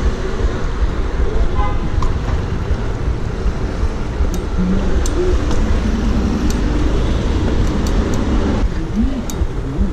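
Steady rush of wind on the microphone and street car traffic while riding a BMX bike down a busy city street, with a few light clicks scattered through it.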